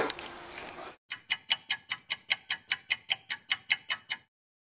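Rapid, even clock-like ticking, about five ticks a second for some three seconds, then cutting off abruptly into dead silence.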